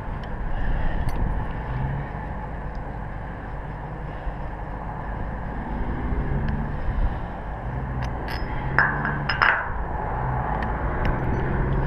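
Wind rumbling over the microphone high on a steel tower, with a low hum coming and going. Near the end there are two sharp metal clinks a little over half a second apart, climbing hardware knocking on the galvanized steel.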